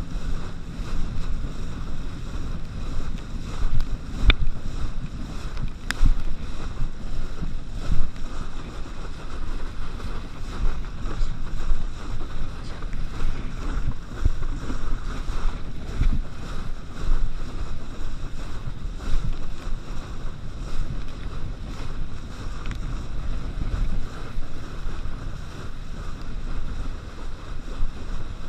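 Kneeboard skimming over choppy water behind a tow boat: a steady rush of spray and wind buffeting the microphone, with a few sharp knocks as the board hits the chop.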